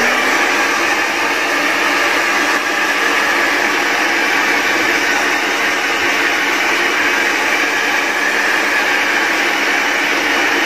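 Handheld hair dryer switched on and running steadily, a loud even rush of air over a low motor hum, blowing a small dog's damp fur dry.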